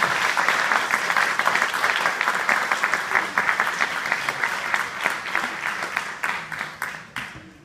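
Audience applauding at the close of a speech: dense clapping that thins out and fades away in the last second or so.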